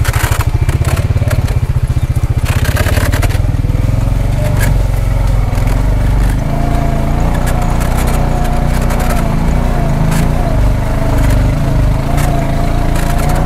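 A vehicle's motor running with a steady low rumble, with two short scraping noises in the first few seconds. A wavering whine joins after about six seconds.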